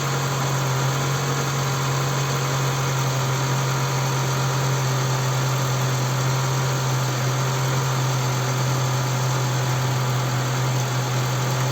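Toyota Camry's 2.4 L 2AZ-FE four-cylinder engine idling cold after a morning start, with a steady even hum. It is being checked for a knock and rattle that the owner hears only on cold starts.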